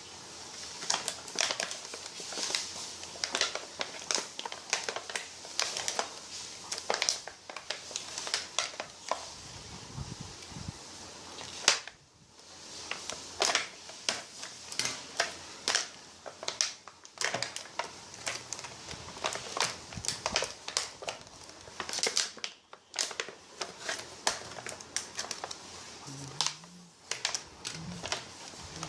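Packaging being handled during unboxing: irregular crinkling and crackling with sharp clicks, pausing briefly twice.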